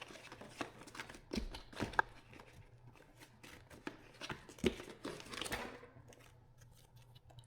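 Unboxing handling: light clicks and knocks of small parts and packaging being picked up and set down, with a longer rustle of plastic or paper packaging near the end.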